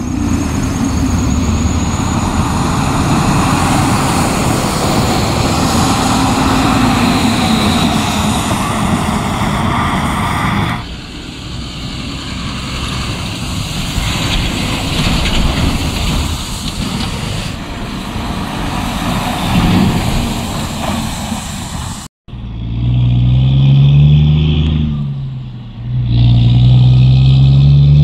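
Heavy diesel dump trucks pulling snow-hauling trailers drive past on a wet road, their engines and tyres making steady traffic noise. Near the end, one truck's diesel engine accelerates hard: its pitch rises, drops briefly as it changes gear, then rises again.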